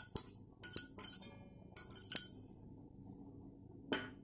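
A glass bowl clinking against metal as chopped vegetables are tipped and scraped out of it into a steel bowl: a run of sharp clinks that ring briefly, most in the first second or so, a couple more about two seconds in and one near the end.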